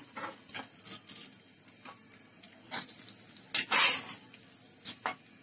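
Metal spatula scraping roasted dal (lentils) out of a pan into a bowl: a series of short scrapes and scratches, the loudest about two-thirds of the way in. The dal has been dry-fried until reddish and fragrant.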